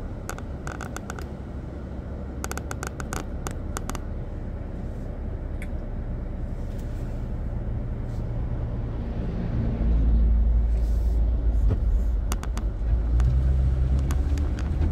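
Diesel semi tractor hauling an oversize-load mobile-home section passes close by, heard from inside a stopped car: a low engine rumble that grows slowly as it approaches and becomes a loud, deep drone from about ten seconds in as it goes past.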